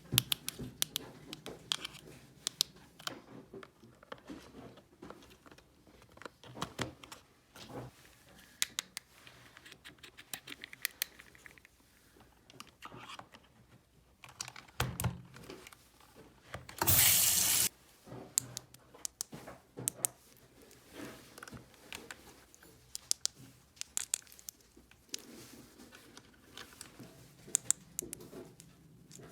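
Small plastic toy pieces being handled, with many light clicks and taps, and one brief loud rushing hiss just past the middle.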